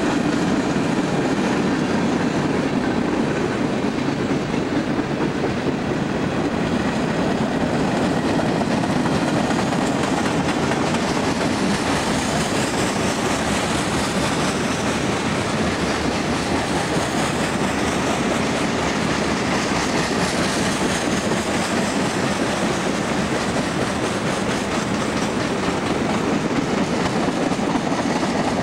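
A long freight train of covered hoppers and tank cars rolling past at steady speed: a continuous noise of steel wheels on rail, with clicking over the rail joints. Faint high wheel squeals come in about halfway through.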